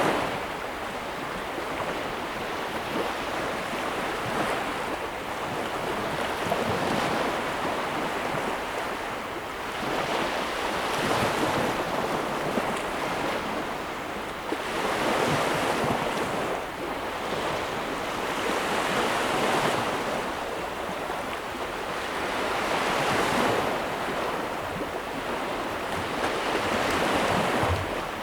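Ocean waves washing onto a shore, the surf swelling and falling back in slow surges every few seconds.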